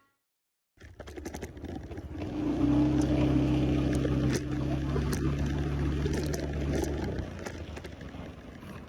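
Road traffic heard while riding a motorcycle: a motor vehicle engine running with road and wind noise, starting after a brief silence. A steady engine hum swells about two and a half seconds in and fades after about seven seconds.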